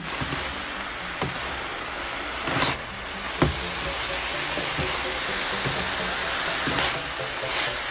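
Red spinach greens sizzling in a hot pan, a steady hiss, with a few sharp scrapes and clacks of a metal spatula against the pan as they are stirred.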